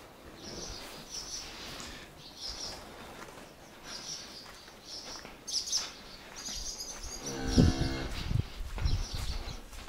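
Cattle mooing: one long, low moo about seven and a half seconds in, with repeated bird chirps throughout.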